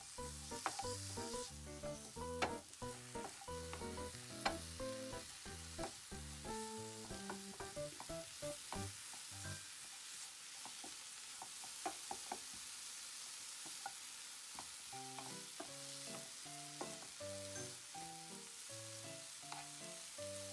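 Dried anchovies, green peppers and green onion sizzling in a nonstick frying pan while a wooden spoon stirs them, with scattered clicks of the spoon against the pan. Soft background music plays under it, dropping out for a few seconds midway.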